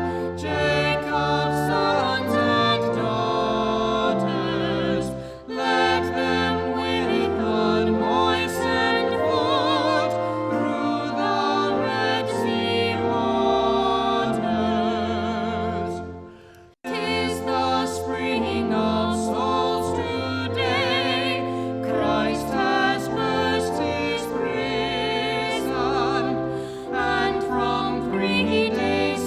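Singing with vibrato over a sustained instrumental accompaniment. The music breaks off briefly about two-thirds of the way through, then resumes.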